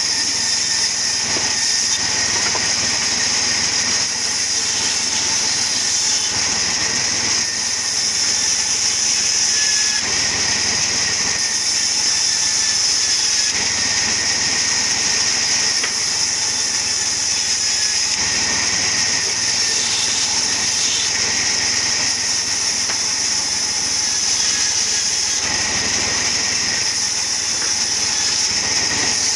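Wood-cutting saw machine running steadily, with a constant high hiss over a low mechanical rumble.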